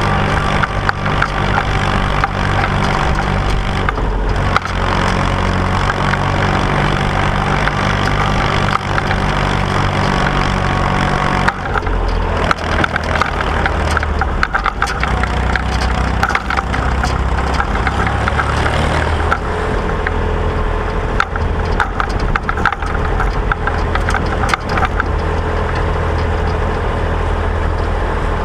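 Massey Ferguson 135 tractor engine running steadily on the move, with a lot of rattling and clattering from the machinery; the engine note changes about eleven seconds in.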